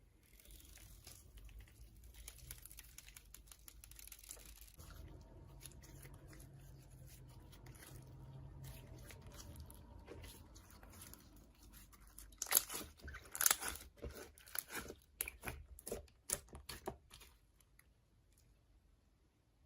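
Slime being worked by hand with makeup mixed in: soft rustling and crinkling, then a run of sharp crackling snaps for several seconds a little past the middle.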